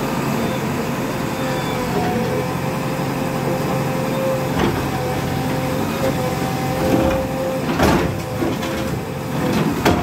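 JCB backhoe loader's diesel engine running under hydraulic load with a steady whine, as the backhoe bucket breaks into a brick wall; a few sharp knocks and crashes of bucket on brick and falling masonry in the second half.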